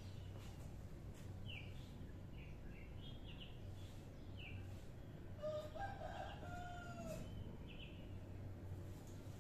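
A rooster crows once, faintly, a little past the middle, over small birds chirping in short high calls and a low steady hum.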